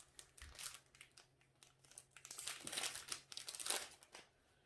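Thin plastic crinkling and rustling in irregular bursts as trading cards are handled, busiest and loudest in the second half.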